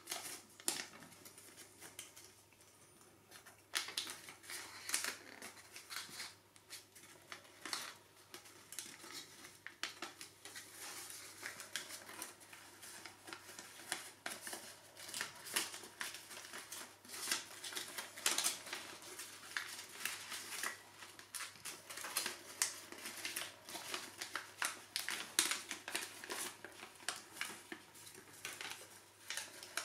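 Sheets of origami paper crinkling and rustling under the fingers as folded modules are handled and their tabs pushed into pockets, with many short crisp crackles at irregular intervals.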